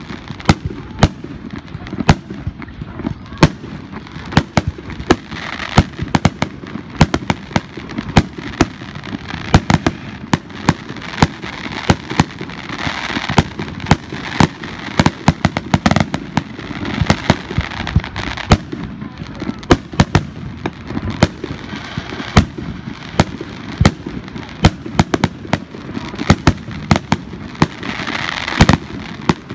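Fireworks display: aerial shells bursting in a rapid, uneven string of sharp bangs, often more than one a second, over a constant background din.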